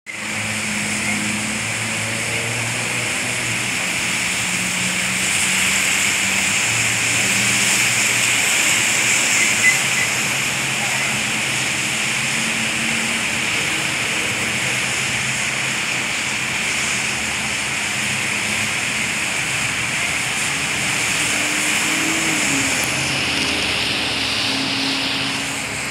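Steady street traffic, tyres hissing on the wet road, with a brief click about ten seconds in.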